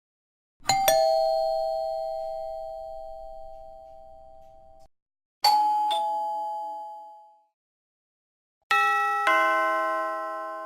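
Doorbell chime sound effect played three times, each a two-note ding-dong, a higher note then a lower one, ringing out and fading. The first rings longest, and the last is fuller and brighter.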